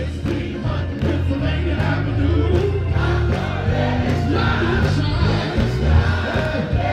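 Music with singing over a strong, moving bass line, growing louder about a second in.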